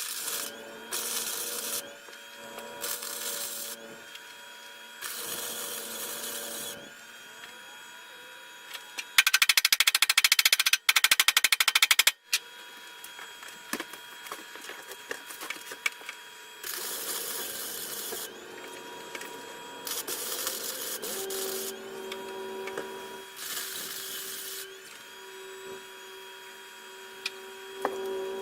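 A handheld power tool run in short bursts of a second or two, several times over. The longest and loudest burst, about a third of the way in, lasts some three seconds with a rapid even chatter.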